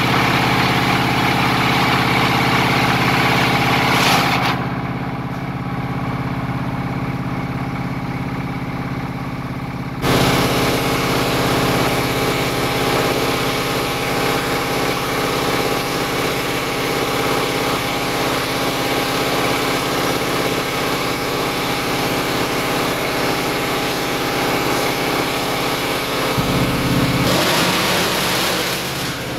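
Wood chipper driven by a single-cylinder diesel engine, running steadily under power. The sound gets suddenly louder and brighter about ten seconds in, and near the end the low engine hum shifts and a burst of hiss comes in.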